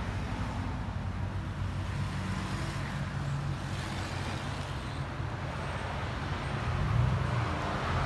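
2018 Chevy Silverado Z71 exhaust, a 3-inch dual system through a Flowmaster Super 10 muffler with the factory catalytic converters kept: a low, steady exhaust note as the truck pulls slowly away and turns, growing louder about seven seconds in.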